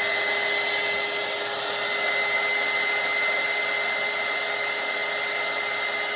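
Handheld hair dryer running steadily at one speed, a loud rush of air over a steady motor whine.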